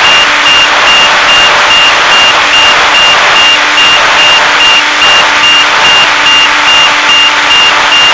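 Loud steady static hiss from an FPV plane's onboard audio feed, with a short high beep repeating about two to three times a second.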